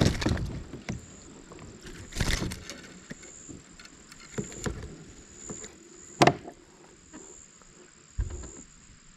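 Scattered knocks and clatter on a kayak, about five separate thumps a second or two apart, with quieter handling noise between them and a faint steady high-pitched tone underneath.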